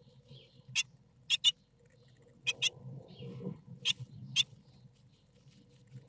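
Nestlings shifting in a wooden nest box: about seven sharp, scratchy clicks over four seconds, some in quick pairs, with faint soft peeps and a low steady hum underneath.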